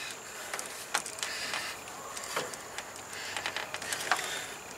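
Hand work on a Ford F-150's serpentine belt drive with the engine off: a wrench levering the belt tensioner while the rubber belt is fed over the pulleys, giving a few scattered clicks and light scraping.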